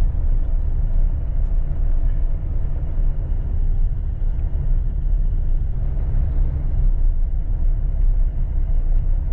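Steady low rumble of a vehicle driving along a street: road and wind noise with the engine running underneath.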